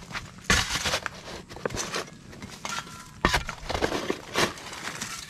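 Steel shovel blades chopping and scraping into dry, stony dirt, clods crunching as they are scooped: several strokes, the loudest about half a second in and just after three seconds.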